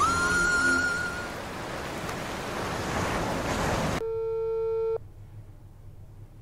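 A held music tone dies away about a second in, under a rushing wash like surf. About four seconds in this cuts off suddenly into a single steady telephone tone lasting one second, followed by a faint low hum.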